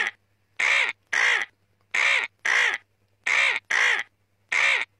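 A bird giving seven short cawing calls, mostly in pairs, with silent gaps between them.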